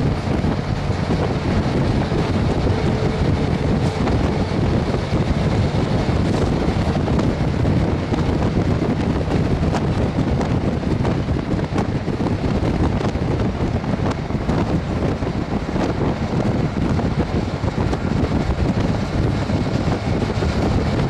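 Steady rush of wind on the microphone from a vehicle moving at road speed, with a low steady drone underneath.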